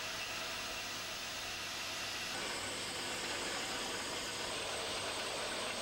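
Steady hiss-like noise with no distinct events; a thin high whine comes in a little over two seconds in.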